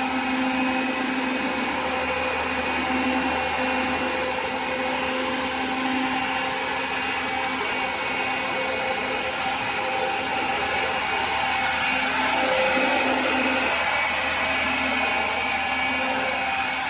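Old engine-driven farm blower fan running steadily, a loud rush of air with a constant whine and motor hum.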